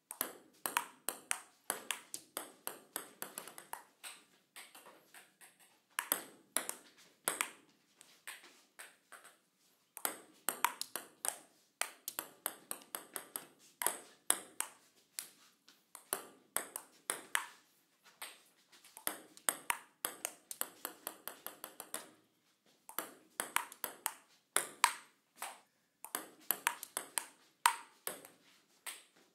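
Table tennis paddle striking a ping pong ball over and over: runs of sharp, hollow clicks, several a second, broken by short pauses.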